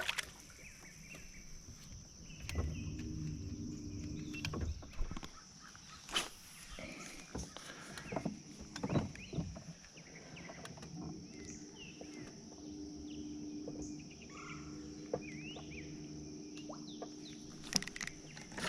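A steady, high-pitched insect drone, with scattered sharp knocks and clicks from handling gear in a small boat and a few short bird chirps. A faint low hum comes in twice, for a few seconds each time.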